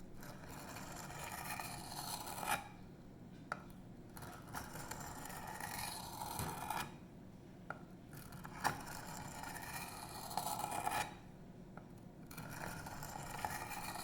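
Steel knife blade (a 154CM Emerson Mini A100 chisel edge) being dragged slowly across a coarse sharpening stone with light pressure. The scraping hiss comes in four long strokes, each followed by a short pause with a small click as the blade is lifted and set back. This is the burr-raising stage of sharpening.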